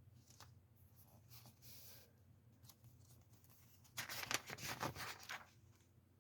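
Paper rustling as comic book pages are handled: a few soft rustles early, then a louder stretch of rustling about four seconds in that lasts over a second.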